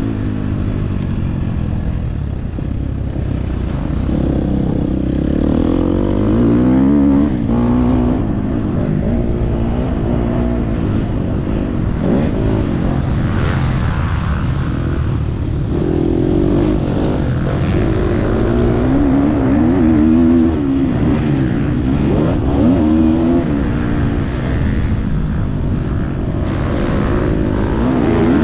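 Motocross bike engine revving hard on the throttle, its pitch climbing and dropping again and again as the rider accelerates, shifts and backs off.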